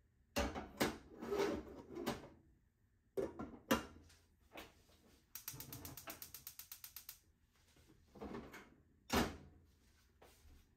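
Kitchen items, among them a glass pot lid, being picked up and set down on a counter. Several knocks and clatters, a rapid even rattle lasting about two seconds in the middle, and one sharp knock near the end.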